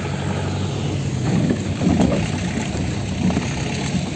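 Off-road vehicle's engine running at a steady pitch while on the move, with louder rumbling and knocks about one and a half to two seconds in.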